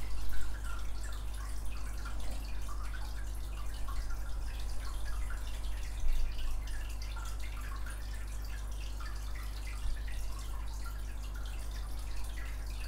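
Steady low electrical mains hum with faint scattered small ticks, and a slightly louder tick about six seconds in.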